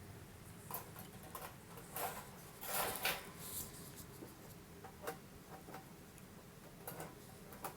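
Faint scattered clicks and light rattles of a portable grill's grilling grate and its lifter being handled and set down, with a short cluster of rattles about three seconds in.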